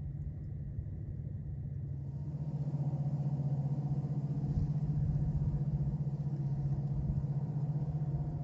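A steady low engine rumble, growing louder about two seconds in.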